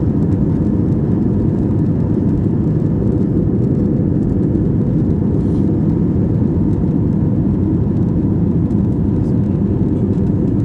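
Steady low cabin noise of an Airbus A320 airliner in flight: the even rumble of engines and airflow heard from inside the passenger cabin.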